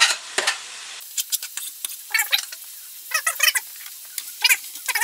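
Pork ribs, onion and garlic sizzling in a frying pan, stirred with a plastic spatula. About a second in, the steady sizzle gives way abruptly to irregular sharp crackles and squeaky pops from the frying meat.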